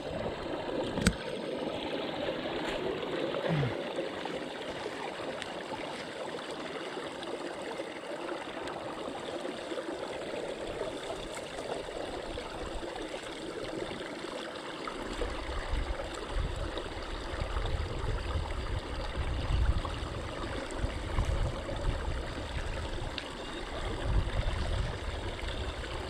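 Pond water rushing and gurgling steadily down an overflow drain pipe through its slotted plastic 'canary cage' trash guard, the guard being cleared of debris. From about halfway through, low rumbling and sloshing join in as a long-handled tool is worked in the water around the guard.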